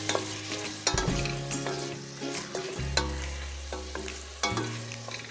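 Chicken pieces sizzling in hot oil in a stainless steel pot while a wooden spoon stirs them, knocking and scraping against the pot several times. Soft background music with held notes plays underneath.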